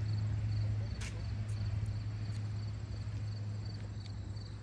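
A cricket chirping in short, evenly spaced high pulses, about two or three a second, over a steady low hum, with a couple of faint clicks.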